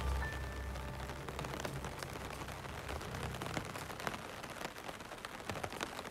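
Rain falling steadily, with many distinct single drops ticking. Soft background music is fading out in the first half.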